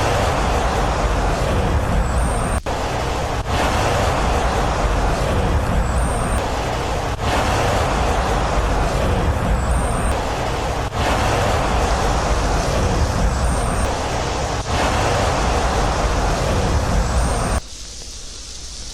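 Loud, steady rushing noise, broken by brief gaps every few seconds, that drops suddenly to a much quieter hiss near the end.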